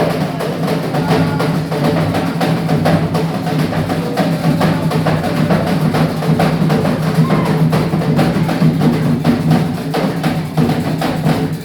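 Afro-Brazilian ritual drumming: hand drums played in a dense, fast, driving rhythm.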